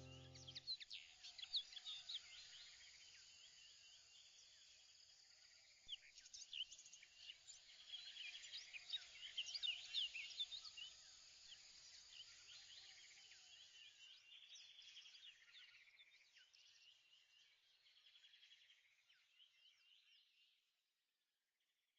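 Faint birdsong: a chorus of quick, high chirps, busiest around the middle and fading out near the end.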